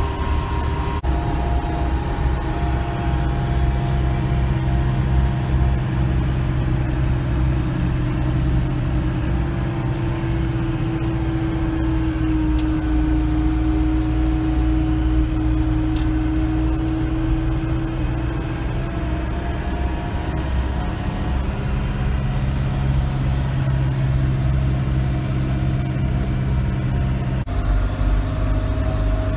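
Branson 5025C compact tractor's diesel engine running steadily while driving along a lane. The pitch sags slightly midway and comes back, and the tone changes abruptly about a second in and again near the end.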